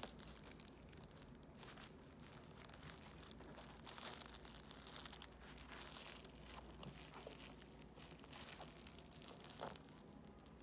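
Faint, irregular scratching and rustling as a kitten bites, claws and kicks a fabric kicker toy against the carpeted cat-tree floor.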